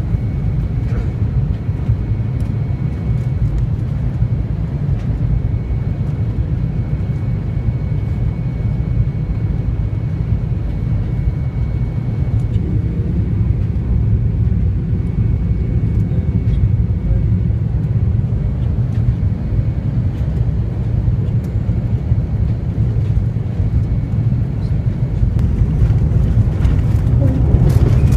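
Steady low roar of engines and airflow inside an airliner cabin on final approach, with a faint high whine through the first half. The roar grows louder near the end, with a few knocks as the plane touches down.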